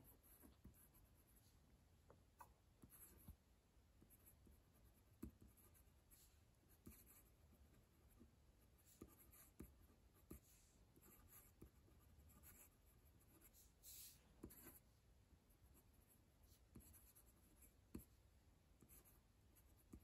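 Faint scratching of a stainless steel 1.1 stub fountain pen nib on paper as cursive words are written, in short irregular strokes with a few light ticks.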